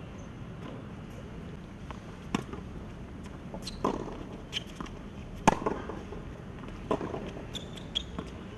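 A tennis ball being hit back and forth on a hard court: sharp knocks of racket strikes and ball bounces about every second and a half, the loudest near the middle.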